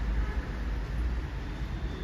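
Steady low background rumble with no distinct event in it.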